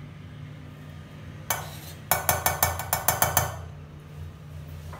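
Metal spoon clinking against a stainless steel saucepan: a brief scrape, then a quick run of about ten light taps lasting just over a second.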